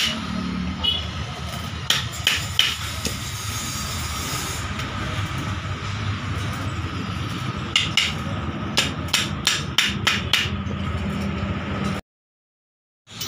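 Sharp hammer strikes on metal, in short runs of a few quick blows, over a steady workshop hum; the sound cuts out completely for about a second near the end.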